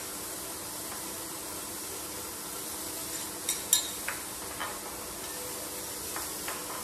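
Beef steak sizzling in a frying pan, a steady hiss, with a few light clicks and taps of a spoon and knife on a wooden cutting board, the sharpest a little after three and a half seconds in.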